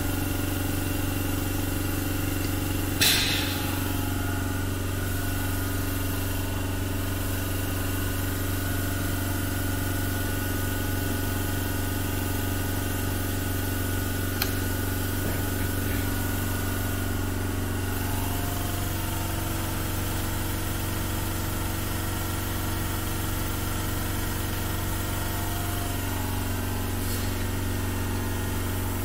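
Steady mechanical hum of workshop machinery, with one sharp metallic click about three seconds in and a faint tick later.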